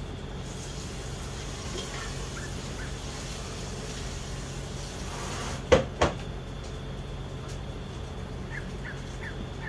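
Steady outdoor hum of a high-rise city with a low drone under it and no thunder. Two sharp knocks about a quarter second apart come about halfway through, and three faint short chirps come near the end.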